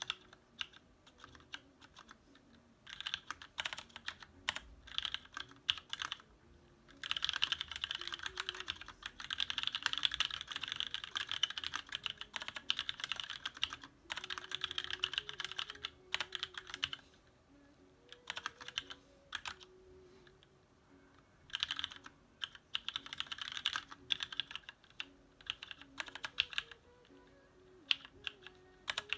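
Fast typing on a custom mechanical keyboard with an aluminium TX1800 case, lubed Cherry MX Black linear switches and thick ABS doubleshot Cherry-profile keycaps, in bursts of several seconds with short pauses between. Music plays faintly underneath.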